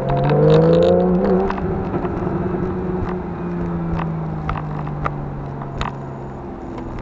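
Porsche 991.1 Carrera GTS's 3.8-litre flat-six with the sport exhaust, heard from inside the cabin: the revs climb as the car accelerates over the first second or so, then hold a steady cruising note and drop back near the end. Scattered light clicks and rattles sound through it.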